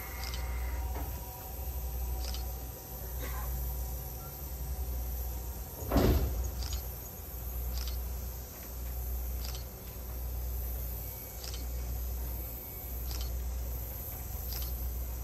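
Steam locomotive and turntable machinery working: a low pulsing that swells about every second and a half, with a short click near most beats. One loud clank comes about six seconds in.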